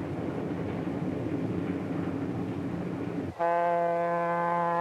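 Steady rumble of a diesel streamliner passenger train running on the rails, then about three and a half seconds in a locomotive horn starts one long, steady, single-pitched blast.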